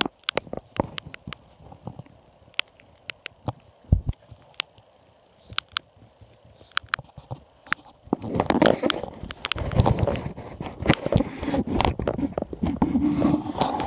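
Scattered light clicks, then from about eight seconds in, dense rustling and scratching in nest-box bedding that continues to the end.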